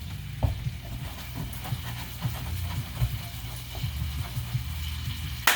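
Monkfish pieces frying in butter in a pan, a light sizzle with scattered small pops and crackles over a steady low hum. A single sharp knock comes near the end.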